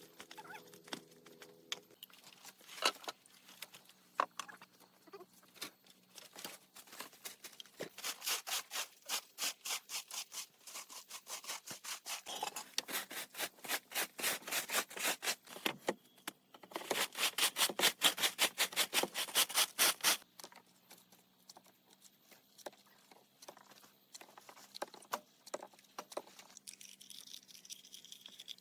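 Rhythmic scraping strokes, several a second, growing louder and quickening until they stop suddenly about two-thirds of the way through; a few single knocks come before them.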